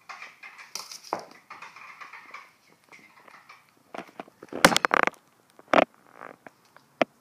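A small Chihuahua playing: faint rustling at first, then a burst of sharp knocks and clatter about two-thirds of the way through, followed by a couple of single knocks.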